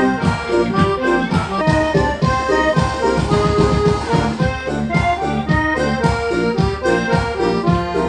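Instrumental music: a quick, busy melody over a steady beat.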